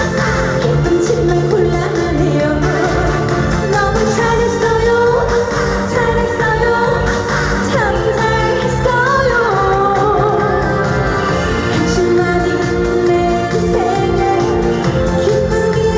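Live song: a woman singing a Korean pop melody over backing music with a steady beat, through a loud stage sound system.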